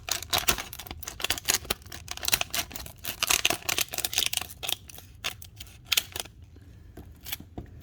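Stiff plastic blister packaging of a trading-card pack crackling and clicking as it is forced open, in rapid snaps that thin out and stop about six seconds in.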